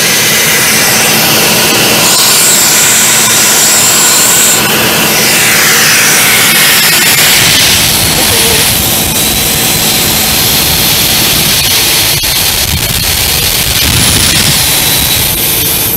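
Compressed air blowing off through the open outlet valve of an ET-Compressors SD-390T diesel screw compressor, a loud steady hiss over its Cummins 6BT5.9 diesel engine running under load.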